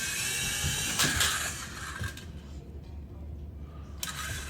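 Small electric motors of a GPToys Durant X-Copter toy helicopter whining. The whine drops away about two seconds in and picks up again near the end.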